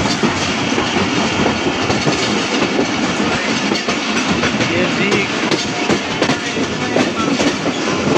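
Passenger train running along the track, heard from aboard a carriage: a steady, loud rattle and clatter of the wheels over the rails, with many irregular clicks.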